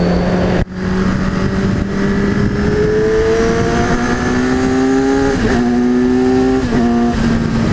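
Kawasaki Z1000 inline-four motorcycle engine pulling under acceleration, its pitch climbing steadily, over wind rush. There is a sharp momentary drop in sound about half a second in and two brief dips in pitch near the end.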